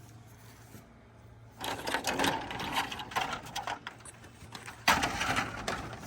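Rapid, irregular clattering and rattling, then a sharp knock about five seconds in followed by more rattling.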